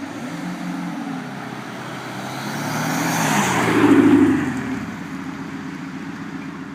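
Audi A6 3.0 TDI V6 diesel with a Maxhaust Active Sound soundbooster giving it an artificial V8-style exhaust note; the engine sound swells to a loud peak about four seconds in, then eases back.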